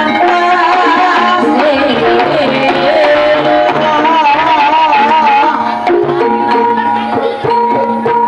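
Loud live music over a sound system: hand drums beating steadily under sustained melody lines, one of them wavering with a wide vibrato partway through.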